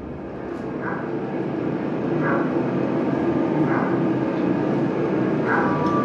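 Air-raid sound effects: a steady drone of aircraft engines growing louder, with a dog barking four times.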